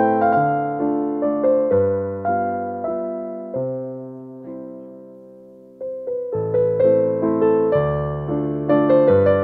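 Background piano music: a slow melody of struck notes, with a held chord fading out about halfway through before the playing resumes.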